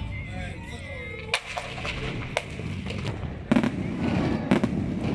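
Aerial fireworks display: a steady rumble of shell bursts with sharp bangs about once a second from about a second in, the loudest near the end. A falling whistle is heard in the first second.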